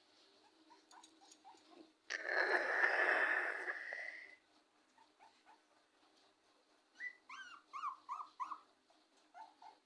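Dog whimpering: a rough, drawn-out whine about two seconds in, then a quick run of about six short, high cries that fall in pitch, starting about seven seconds in.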